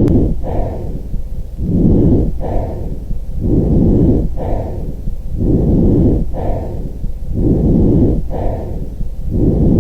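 Lung breath sounds heard through a stethoscope on the chest: a steady cycle of inhaling and exhaling, about one breath every two seconds, five in all.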